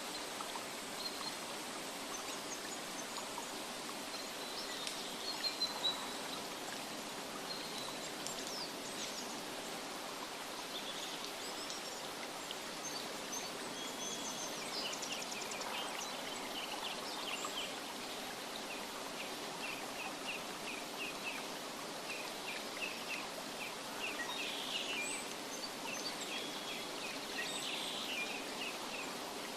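Steady rushing water of a stream, with small birds chirping over it; in the second half one bird repeats a short high note about twice a second.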